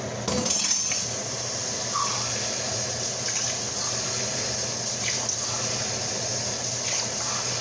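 Water pouring in a steady stream into a pot of jasmine rice: the cooking water being added.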